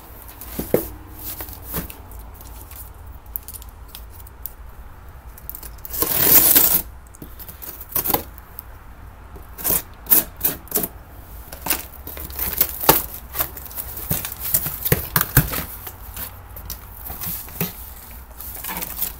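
Cardboard shipping box being opened by hand: a loud tearing rip lasting about a second, about six seconds in, then a long run of short rips, rustles and knocks of cardboard and packaging being handled.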